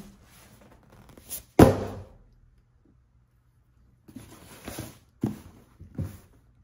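Cardboard box set down on a glass table with one loud thump, then slid across the glass and knocked lightly twice as it is squared into place.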